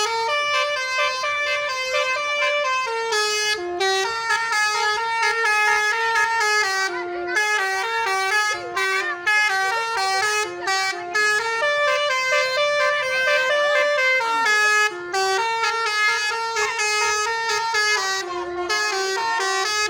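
A bus's telolet basuri horn, a multi-trumpet musical air horn, playing a tune throughout in quick stepped notes that change pitch several times a second, with only brief breaks.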